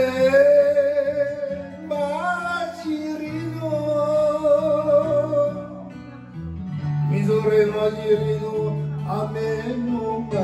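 A man singing an enka song in long, wavering held notes over a karaoke backing track with guitar, in two phrases with a short break about six seconds in.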